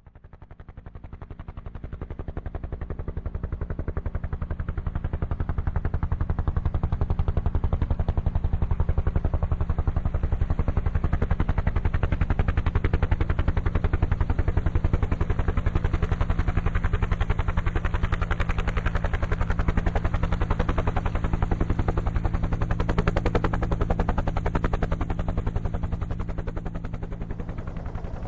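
Bell UH-1 Huey helicopter: the rapid, even chop of its two-bladed main rotor over the steady drone of its turbine engine. It rises in level over the first few seconds, then holds steady, easing a little near the end.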